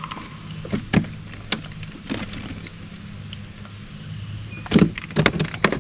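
Freshly caught bream flopping and knocking about inside a cooler on a boat: a few scattered knocks, then a quick flurry of loud thumps and slaps near the end. A steady low hum runs underneath.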